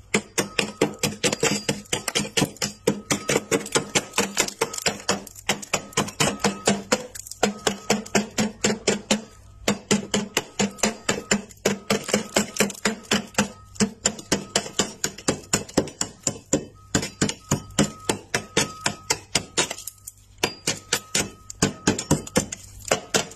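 Thick, flaky freezer frost being scraped off the freezer wall in quick repeated strokes, several a second, with a couple of brief pauses.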